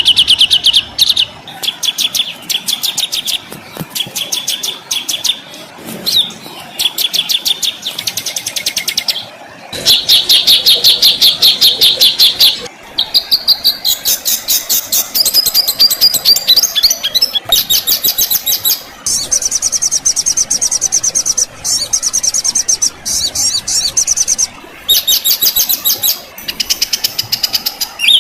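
Songbird tutor recording of fast, harsh rapid-fire trills and rattling call series: one high, rolling passage after another, each breaking off abruptly into the next. The longest and loudest trill comes about ten seconds in.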